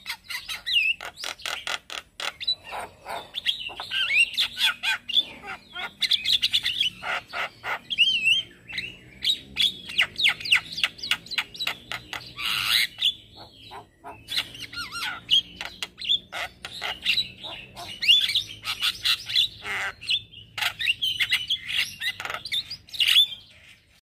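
Male Javan myna singing: a fast, continuous babble of chattering clicks, harsh notes and short whistles, with a brief pause about fourteen seconds in.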